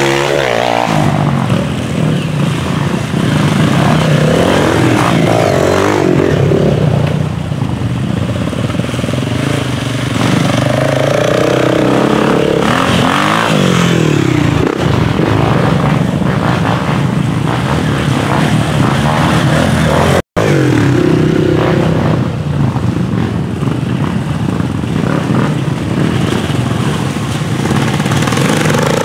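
Several dirt bike engines running and revving as riders come through one after another, the pitch rising and falling with the throttle.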